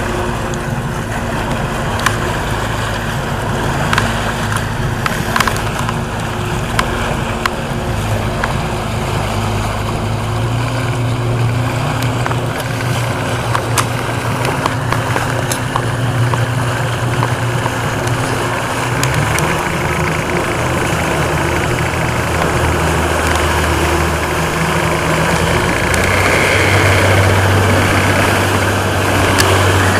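Stingray 195LR's 4.3 MPI V6 sterndrive engine running under way while towing a tube, with the rush of the wake and water underneath. The engine note steps to a different pitch a few times.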